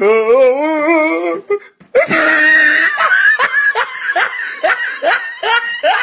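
A person laughing: a wavering, warbling laugh for about a second and a half, then after a short break a run of repeated bursts of laughter, about two to three a second.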